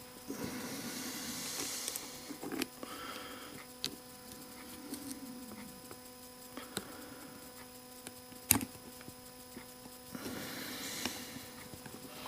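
Hands handling the small parts of a DeWalt impact driver's quick-change bit holder: two stretches of rustling and a few light clicks and taps, with one sharper click about eight and a half seconds in. A faint steady hum runs underneath.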